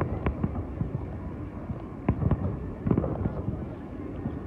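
Aerial fireworks going off in the distance: a rapid string of bangs and crackles, loudest around two to three seconds in.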